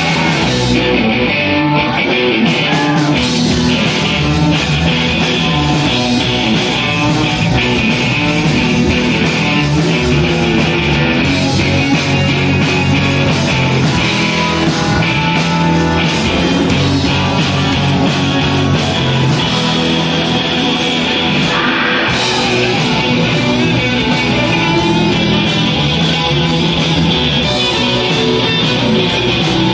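Live rock band playing loudly: electric guitars over bass guitar and a drum kit.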